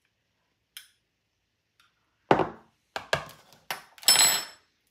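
A metal spoon knocking against a mixing bowl and a small glass jar while garlic is spooned in: several sharp knocks from about halfway through, then a louder ringing clink of metal near the end.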